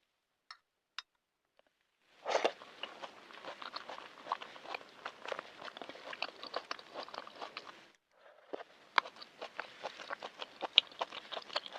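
Close-miked chewing, a dense run of small crackly mouth clicks that starts about two seconds in, pauses briefly about eight seconds in, then carries on. The food is the soaked tea ingredients: longan, goji berries, red dates and chia seeds.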